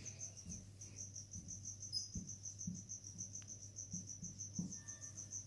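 A steady high-pitched chirping, pulsing about five times a second like an insect, over faint scratches and taps of a marker writing on a whiteboard.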